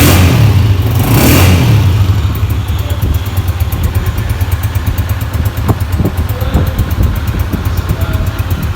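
Motorcycle engine running steadily close by, with a brief rise about a second in.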